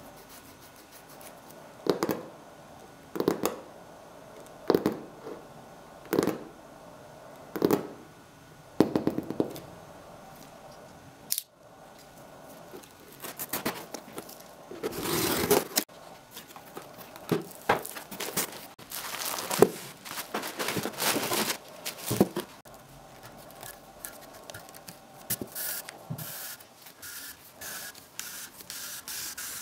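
Album packaging being cut and torn open: a run of six evenly spaced scraping strokes, then, after a sudden break, a longer stretch of tearing and crinkling with scattered smaller scrapes.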